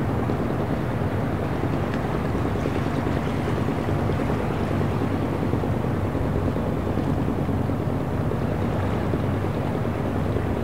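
Steady low hum of a boat's engine running, over an even wash of harbour water noise.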